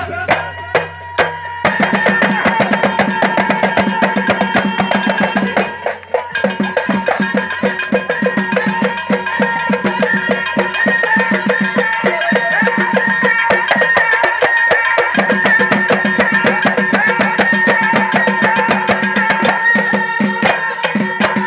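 Moroccan Houari folk music: a troupe beating a fast, dense rhythm on small hand drums, including clay goblet drums (taarija), with held sung notes amplified through loudspeakers over it. The drumming breaks off briefly about six seconds in, then carries on.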